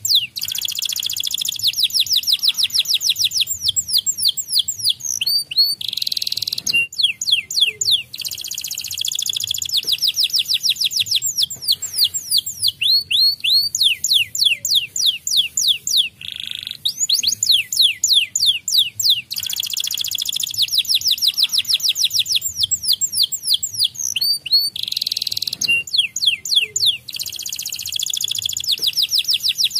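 White domestic canary singing: long phrases of fast trills, high notes repeated in quick succession, broken by short pauses every few seconds.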